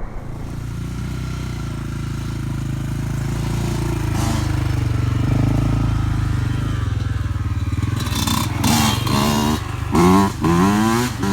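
A vehicle's engine running with a steady low rumble. Starting about eight seconds in, louder pitched sounds that bend up and down break in over it.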